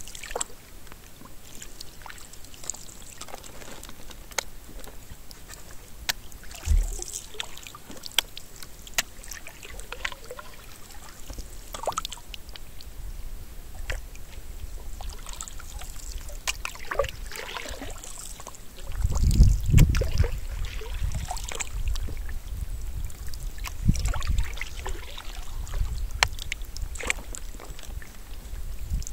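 Canoe being paddled: water trickling and splashing off the paddle, with small knocks and clicks against the hull. A low rumble comes in about two-thirds of the way through.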